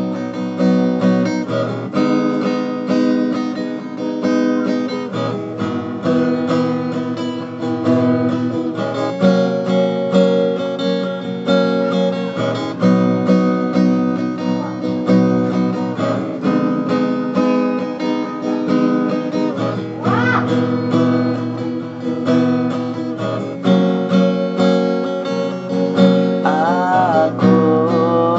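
Acoustic guitar strummed in a steady run of chords, with a man's singing voice coming in briefly twice, about two-thirds in and near the end.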